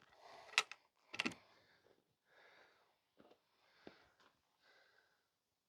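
Faint handling noises: two sharp clicks in the first second and a half, then quiet rustling and a few light taps.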